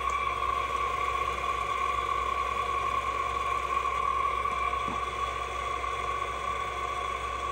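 Seong Kwang SKR-1000 radial arm drill running with its spindle turning and feeding on power feed, a steady mechanical whine from the drill head's gearing.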